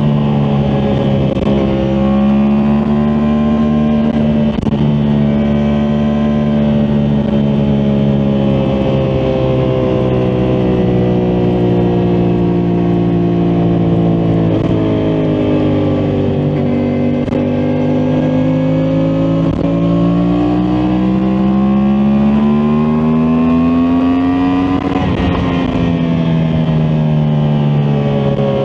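Yamaha MT-10 SP's crossplane inline-four engine running under way at steady throttle. Its pitch sinks slowly around the middle, rises for several seconds, then eases off near the end.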